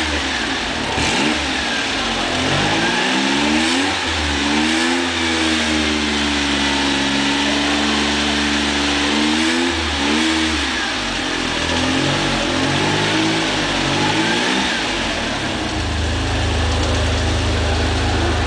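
Smart Brabus Roadster's 1.4-litre bi-turbo V6, built from two 698 cc turbocharged three-cylinder engines, being revved. The revs climb over a couple of seconds, are held high for about four seconds, then drop away. A second, shorter rev follows before the engine settles to a steady idle near the end.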